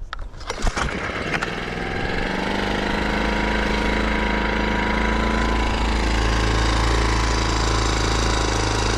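Small 4-horsepower Chinese outboard motor pull-started, catching about a second in, then running steadily at an even speed.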